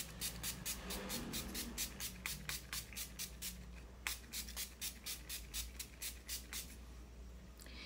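Finger-pump facial mist spray bottle pumped over and over in quick succession: a rapid series of short, faint spray puffs, several a second, stopping about a second before the end.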